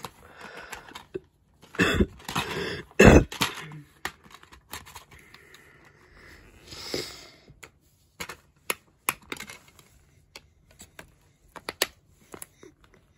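Plastic DVD case being handled, opened and shut: rustling and two loud knocks a couple of seconds in, then a run of short, sharp plastic clicks and taps in the second half.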